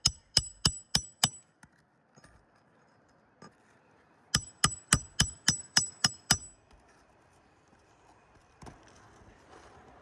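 Hand hammer driving roofing nails into asphalt shingles: a run of about five ringing strikes, a pause, then a second run of about eight strikes beginning about four seconds in, roughly three strikes a second.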